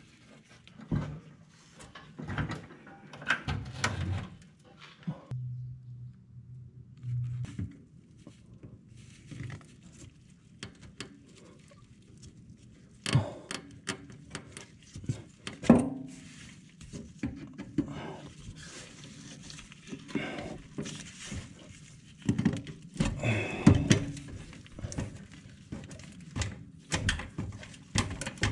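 Scattered clicks, taps and knocks of gloved hands and tools working on connectors, clips and lines under an SUV, with a brief low hum about six seconds in.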